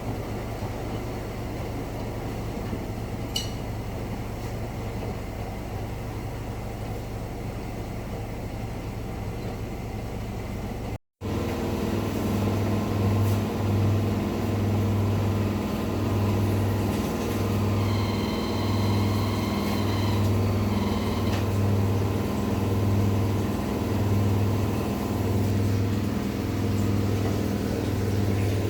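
Rex-Electrolux RJ 7160 TA washing machine running mid-cycle, a steady mechanical hum. After a short break about 11 seconds in, a deeper hum pulses about once a second.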